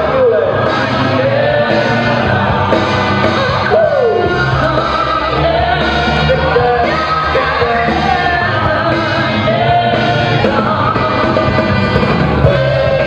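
Loud music with a sung vocal line over a steady bass.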